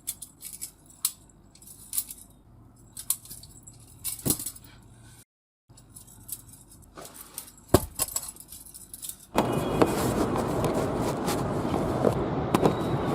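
Butterfly knife (balisong) being flipped: irregular metallic clicks and clinks of the handles swinging and knocking around the blade. About nine seconds in it gives way abruptly to a steady, louder rushing noise.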